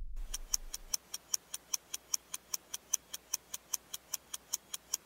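Clock ticking fast and evenly, about five ticks a second, while a low rumble dies away during the first second.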